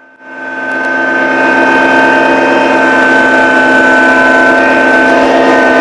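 Kubota BX1860 compact tractor's small three-cylinder diesel engine running steadily at constant throttle, with a steady high whine over the engine note. It comes in about a quarter second in and holds level.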